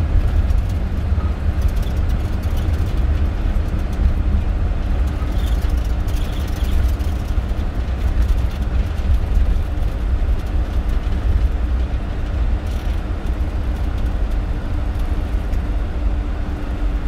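Steady low rumble on a Boeing 747-400 flight deck during the landing rollout: the wheels rolling on the runway and the engines running as the jet slows after touchdown. A faint steady hum joins in about two seconds in.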